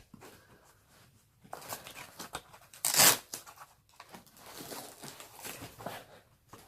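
Packaging being handled and torn open during unboxing: irregular rustling, with one loud tearing sound about three seconds in.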